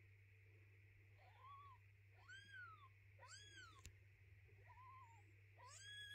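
Newborn kitten mewing: five short, high-pitched mews, each rising then falling, spread over about five seconds and starting about a second in. A single faint click comes near the middle.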